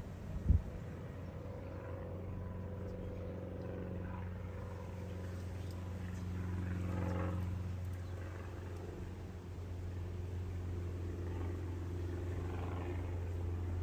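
Steady low engine rumble of road vehicles at a level crossing, swelling about seven seconds in, with one sharp knock about half a second in.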